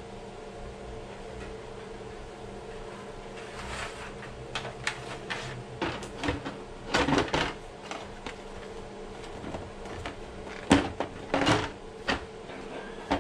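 Hard plastic clicks, knocks and rattles of an RC monster truck's body shell being lowered and fitted onto the chassis, starting a few seconds in, with the loudest knocks near the end. A steady low hum runs underneath.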